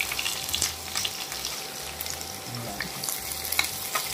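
Chopped onions frying in hot sunflower oil with spluttered mustard seeds in a kadai: a steady sizzle full of small crackles, stirred with a spoon.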